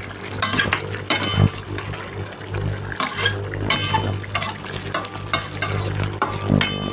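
Slotted metal spatula scraping and stirring against a stainless steel wok, chicken pieces in sauce sizzling as they are turned. Irregular scrapes and clinks with short metallic ringing, over a steady low hum.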